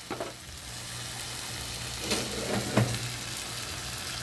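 Liver and onions frying in a pan, a steady sizzling hiss, with two short knocks about two to three seconds in.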